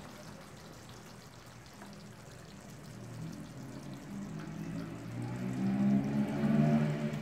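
Faint hiss and bubbling of a jackfruit curry still simmering in the kadai just after the gas is switched off. From about halfway a low voice comes in and grows louder.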